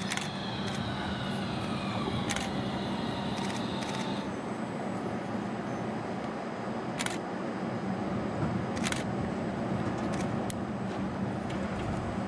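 Fukui Railway FUKURAM low-floor tram braking into the platform and stopping: its motor whine falls in pitch over the first four seconds, over a steady hum. A few sharp clicks follow while the tram stands with its doors opening.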